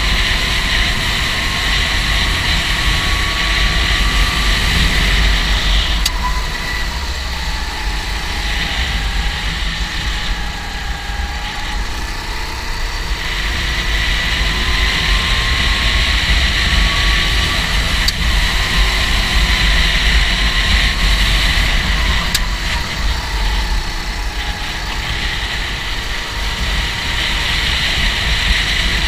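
Kart engine running hard, its pitch slowly rising and falling again and again as the kart accelerates and backs off, over a loud steady low rumble.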